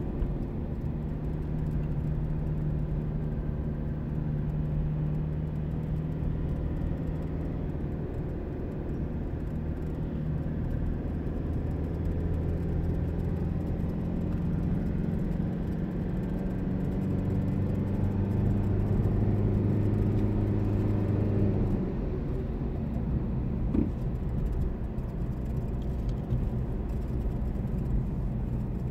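Car engine and road noise heard from inside the cabin while driving: a steady low hum whose pitch climbs slowly, then drops about two-thirds of the way through as the engine eases off. A single brief tick comes shortly after.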